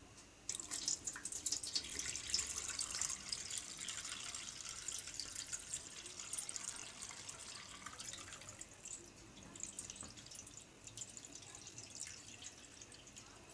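Water poured from a small plastic bucket into a stainless-steel sink, splashing onto the drain strainer: rinse water being drained off tubifex worms. It starts abruptly about half a second in and thins to a lighter trickle in the second half.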